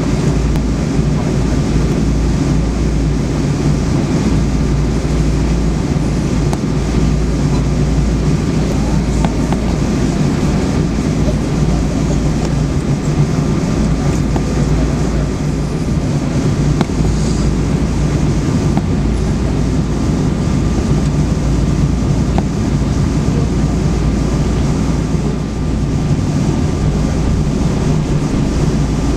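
Steady cabin noise inside a Boeing 777-200ER taxiing after landing: a low rumble of the idling engines and rolling wheels, with a faint steady whine above it.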